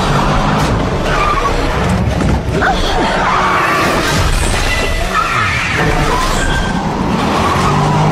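Film action soundtrack: a muscle car's engine running hard and tyres skidding, with crashing and shattering impacts over dramatic music.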